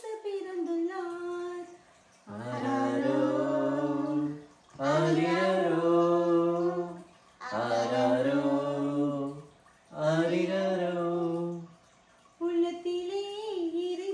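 Unaccompanied carol singing in Tamil, in phrases of about two seconds with short pauses for breath. A woman sings alone at first and again near the end, and a lower male voice joins her for the middle phrases.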